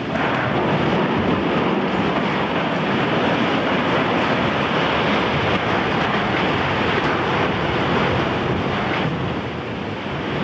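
Strong wind buffeting a camcorder microphone in a loud, steady rush, easing slightly near the end.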